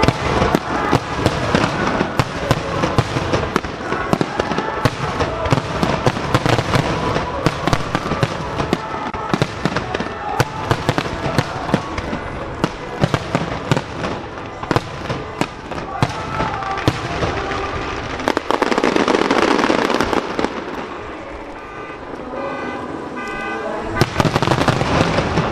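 Starmine fireworks barrage: a rapid run of shell bursts and crackling, the bangs echoing around the lake basin, over music.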